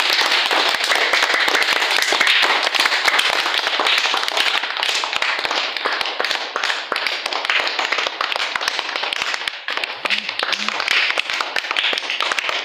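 Children applauding, a dense steady clapping, with a couple of brief voices about ten seconds in.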